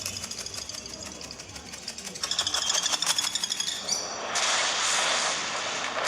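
Sound effects played back through a Samsung Galaxy phone's loudspeakers: rapid clicking and rattling with high steady tones, turning into a louder rushing noise about four seconds in.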